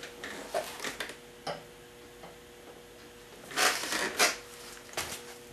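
Handling noise of a camera being gripped and moved by a gloved hand: scattered soft clicks and rustles, with a louder cluster of rustling knocks about three and a half seconds in and a few more clicks near the end. A faint steady hum runs underneath.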